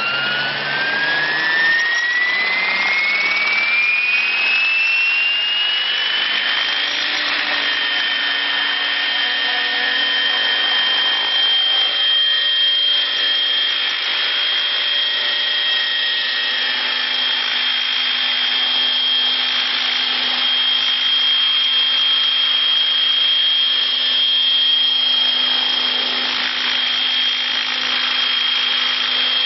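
Radio-controlled model helicopter spooling up, its tail rotor running unbalanced. A high whine rises in pitch over the first seven seconds or so, then holds steady over the rushing noise of the spinning rotors.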